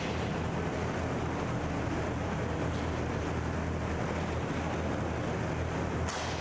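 Inline hockey rink sound: a steady rumble of arena noise and skate wheels rolling on the plastic tile floor, with a few sharp clacks of sticks and puck, one about three seconds in and one just before the end.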